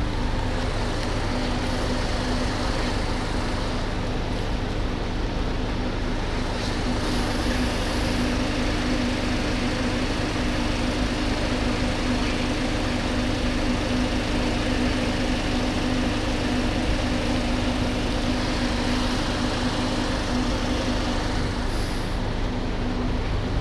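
Idling vehicle engines: a steady, unchanging mechanical hum with a constant low drone.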